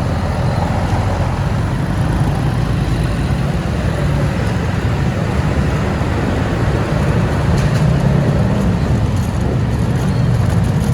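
Steady engine and road rumble of a moving vehicle, heard from on board.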